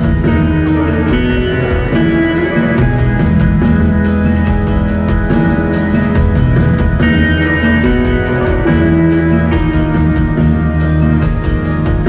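Live rock band playing loudly in an arena: an instrumental passage with a steady drum beat and no singing.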